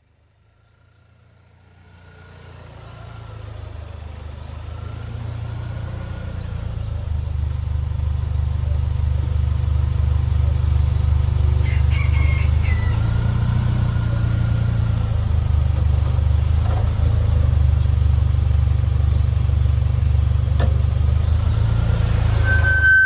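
A 2025 Toyota 4Runner reversing: a low vehicle rumble that swells over the first several seconds, with a faint high-pitched screech rising and falling several times over it. The screech happens only in reverse.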